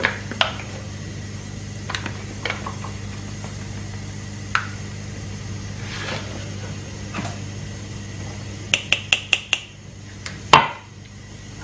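A metal sieve and kitchen utensils knock against a stainless steel mixing bowl as flour is added and sifted. There are scattered light knocks, then a quick run of about six taps near the end and one louder knock, over a steady low hum.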